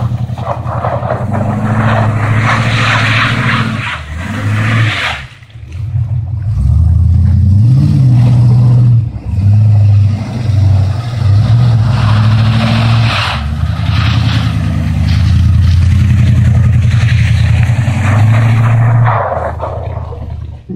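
A 1983 Dodge D150 pickup's engine, running on open headers with no exhaust, revs hard and holds high revs as the truck drifts through snow, with a hiss of spinning tyres. The revs drop briefly about five seconds in and climb again a couple of seconds later.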